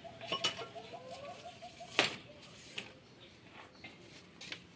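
A bird calling in a rapid, even series of low cooing notes that stops about two seconds in, with a fainter rising note beneath it. A single sharp knock at about two seconds is the loudest sound.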